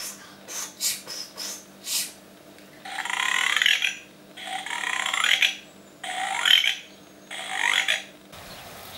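Comic animal-like creature noises for a plush toy: a quick run of about six short chirps, then four longer raspy calls that each rise in pitch, over a faint steady hum.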